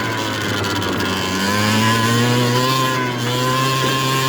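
70cc big-bore two-stroke scooter engine running under way. Its revs rise about a second in and then hold steady.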